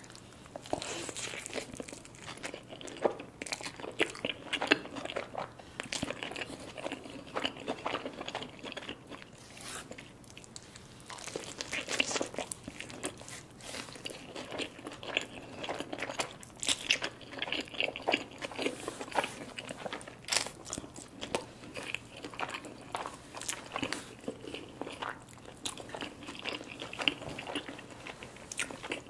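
Close-miked mukbang eating sounds: a person biting into a large burrito and chewing it, with many crisp crunches and clicks.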